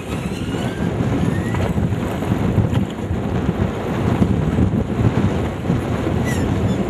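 Wind blowing across the microphone as a steady low rumble, over the wash of choppy river water around a small boat.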